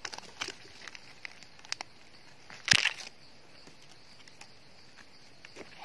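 Dry leaf litter crackling and rustling in scattered clicks as a gloved hand digs into the forest floor and pulls up a mushroom, with one louder crunch near the middle.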